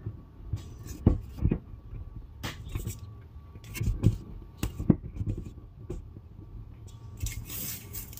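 Handling noise from a rubber RV slide seal being worked into place by hand: irregular knocks and taps as it is pushed up against the aluminium tubing, and a rustling hiss near the end as the red liner is peeled off its double-sided tape. A steady low hum runs underneath.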